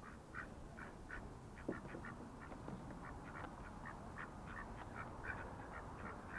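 Several ducks quacking: a loose chorus of short, irregular calls, several a second, with one knock about two seconds in.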